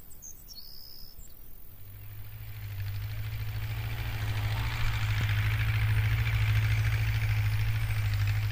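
Tractor engine running steadily with a low hum, fading in and growing louder as the tractor approaches and passes, then holding steady.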